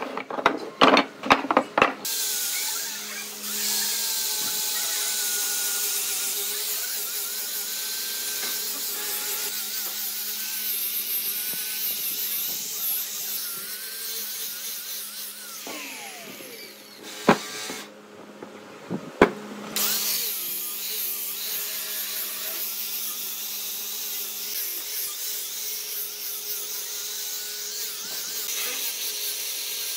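Wooden pieces knock together for the first couple of seconds. Then an electric angle grinder with a sanding disc runs steadily as it sands the surface of a wooden log. A little past halfway it stops briefly, with a sharp knock on either side.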